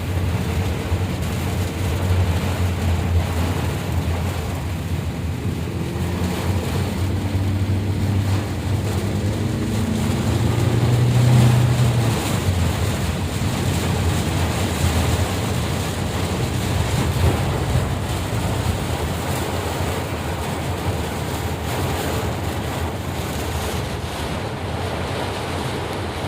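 Heavy rain with wind buffeting the microphone: a loud, steady roar with a low rumble. A faint engine tone rises about six to ten seconds in.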